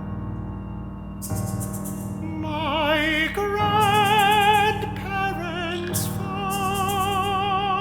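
Chamber orchestra playing slow classical music: sustained notes with a wavering vibrato over held low notes.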